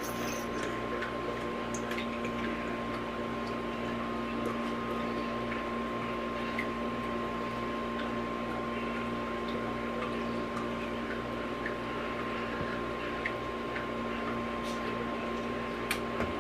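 Thick cheesecake batter being scraped with a spatula out of a stainless steel mixing bowl into a springform pan: faint soft squishes and scrapes over a steady electrical hum with a fixed tone.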